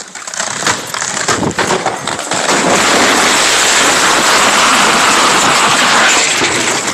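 A tree cracking and splitting with a series of sharp snaps, then a loud, dense crash of breaking wood and branches as it comes down, lasting about four seconds.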